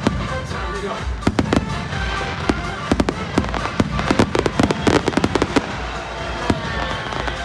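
Aerial fireworks shells bursting one after another in a rapid string of bangs and crackles, thickest about four to five seconds in, with music playing underneath.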